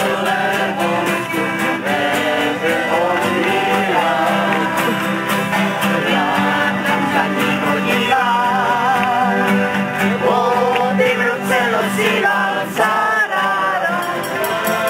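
A small folk band of accordion, acoustic guitars and fiddle playing a tune together, with voices singing along.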